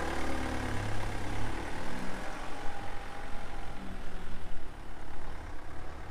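A van's engine running as it drives away down the street, growing fainter as it goes.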